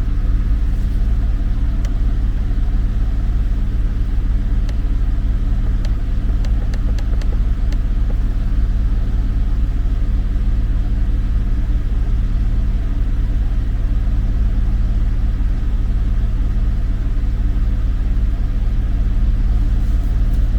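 Porsche 911 Carrera S flat-six engine running steadily, a constant low hum with no change in speed.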